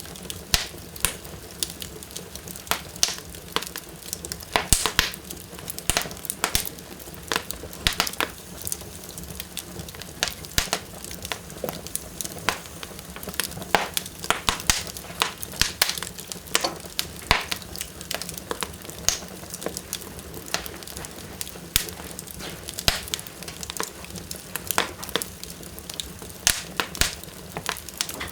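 Wood fire burning in a fireplace, crackling strongly: frequent irregular sharp pops and snaps over a steady low hiss.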